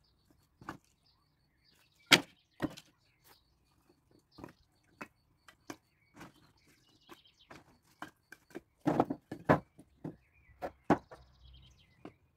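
Split firewood logs knocking and clattering against each other as they are stacked onto a woodpile: a string of irregular sharp wooden clacks, the loudest about two seconds in and a burst of several around nine seconds in.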